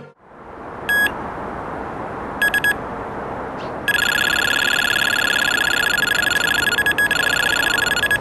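Electronic carp bite alarm sounding over a steady background hiss. A single beep about a second in and a short burst of beeps around two and a half seconds in are drop-back or line twitches. From about four seconds in, a continuous run of rapid beeps marks a carp taking line.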